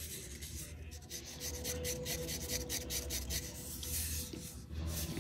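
Hands rubbing and brushing over a HomePod mini's fabric mesh covering: a soft, irregular scratchy rubbing.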